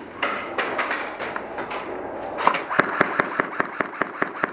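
Rustling and scattered knocks, then from a little past halfway a rapid, even run of sharp clicks, about five a second.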